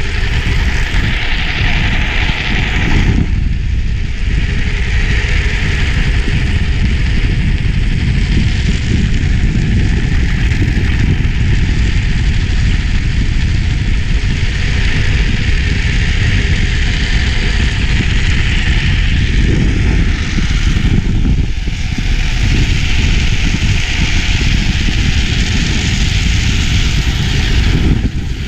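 Drift trikes coasting fast downhill: a continuous low rumble of wind buffeting the microphone and hard wheels rolling on asphalt, with a scraping hiss that swells and fades several times as the plastic-sleeved rear wheels slide sideways in drifts.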